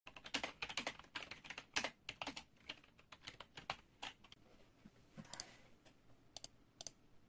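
Typing on a backlit computer keyboard: a quick run of key clicks for about the first four seconds, then slowing to a few scattered keystrokes.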